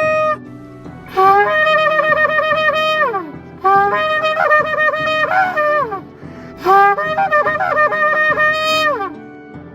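Shofar (ram's-horn) blasts: three long calls, each starting on a low note that jumps up, breaking into quick wavering notes in the middle and sliding down in pitch at the end. A held horn note cuts off just as the calls begin.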